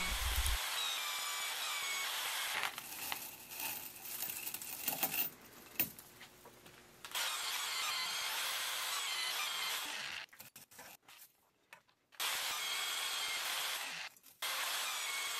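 Magnetic drill turning a high-speed steel annular cutter through 1-inch stainless steel plate: a steady cutting noise in several stretches, broken by short near-silent gaps, the longest about ten seconds in.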